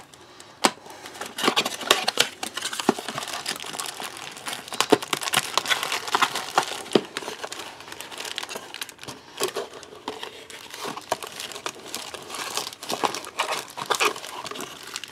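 Crinkling plastic and bubble-wrap packaging and a cardboard box being handled and opened by hand, with dense irregular crackles and light clicks.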